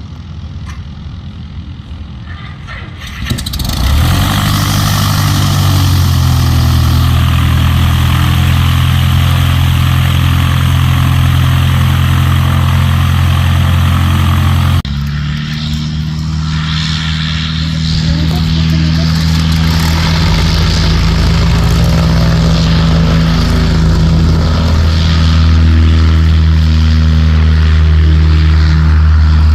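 Light propeller aircraft's piston engine running loud and steady, joining in with a sudden rise about three seconds in. The sound changes abruptly about halfway through, then grows slowly louder toward the end.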